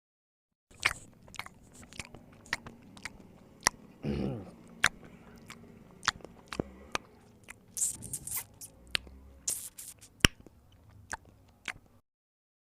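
A run of sharp, irregular clicks and crunches, with a short low pitched sound about four seconds in. It starts and stops abruptly.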